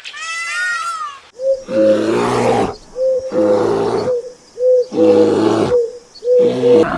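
An animal calling: a wavering higher call ends about a second in, then four repeated calls about a second apart, each a short higher note dropping into a rough, lower sound.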